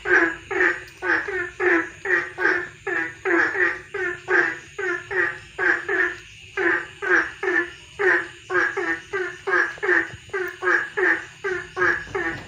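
Frogs calling: short croaking calls repeated in a fast, steady series, about three a second.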